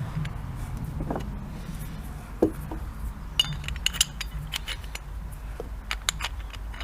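Aluminium bench-rest parts clicking and knocking together as they are handled and fitted: a scatter of sharp taps and clinks, bunched around the middle and again near the end.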